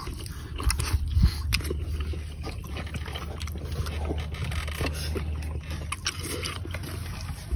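Close-up eating sounds of chicken eaten by hand: scattered small smacks and wet clicks of chewing and handling food, over a steady low rumble.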